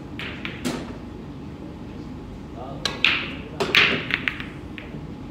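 Pool balls clicking during a 9-ball game: a couple of sharp clicks near the start, then a cluster of louder clicks and knocks about three to four seconds in, as the cue strikes and balls collide.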